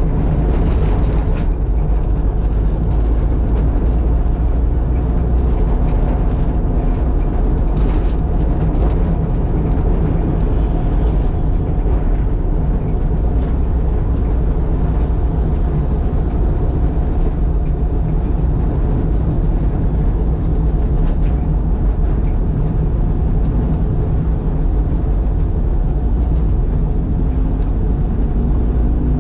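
1972 Leyland Mini Van's 1.0-litre engine on a single SU carburettor, running steadily under way, heard from inside the cabin with road noise.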